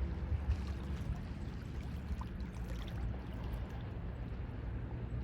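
Mediterranean Sea waves washing and sloshing steadily.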